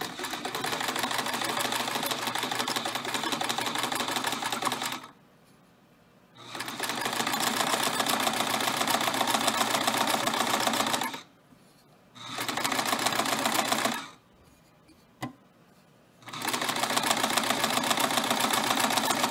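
Singer 5528 sewing machine stitching through cotton fabric in four runs of a few seconds each, starting and stopping as the foot pedal is pressed and let up. The third run is the shortest, and a single click sounds in the gap after it.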